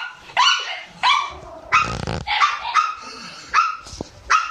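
Shiba Inu barking repeatedly in short, high yaps, about seven in a row, with one longer, rougher bark about two seconds in.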